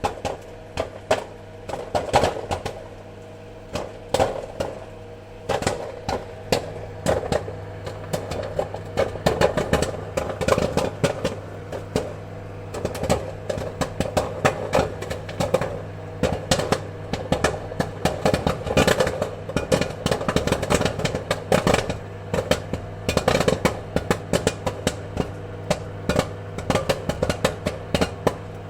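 Popcorn kernels popping in quick, irregular succession: scattered pops for the first few seconds, then a dense, fast run of them, over a steady low hum.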